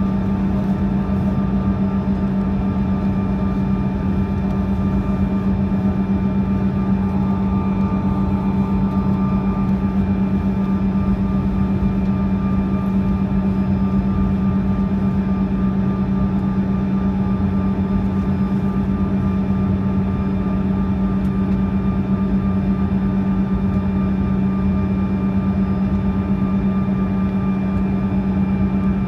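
Steady cabin noise inside a Bombardier CRJ-200 at low power on the ground: a constant low hum with fainter steady whines above it, unchanging throughout.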